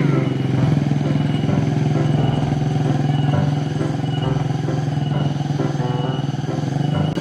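Small ATV engine running at a steady, even pitch.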